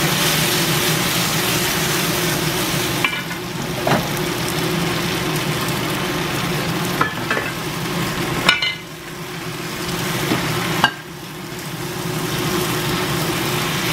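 Bok choy, scallops and mushrooms sizzling as they are stir-fried in a wok, with a wooden spatula knocking against the pan several times. The sizzle dips briefly twice in the second half.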